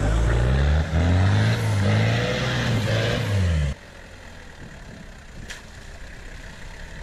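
Off-road 4x4 engine running close by, its pitch rising and falling as it is revved, cutting off abruptly a little under four seconds in; after that, a much quieter, steady engine rumble as a Toyota Land Cruiser 70-series creeps into a muddy puddle.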